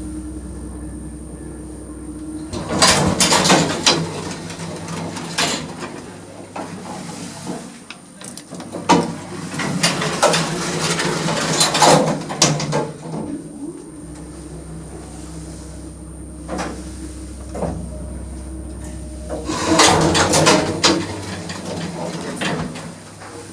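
Old 1960s relay-logic lift in use: the low hum of its single-speed motor stops, then the lift doors slide and clatter in several loud bouts. The motor hum starts again for a few seconds midway, between the bouts of door noise.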